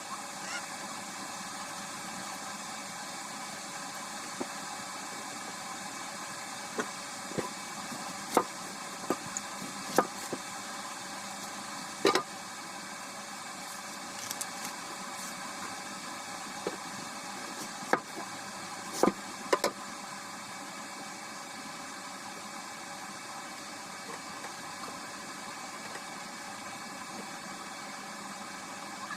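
Steady hiss and hum of a running kitchen appliance, with scattered short, sharp knocks and clinks of utensils, most of them in the middle of the stretch.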